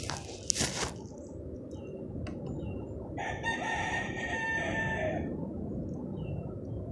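A single long bird call, held about two seconds, starting about three seconds in, with a few sharp handling clicks in the first second.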